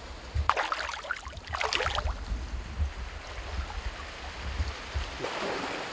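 Water splashing in shallow creek water for about a second and a half as a released fish swims off, over the steady rush of the stream.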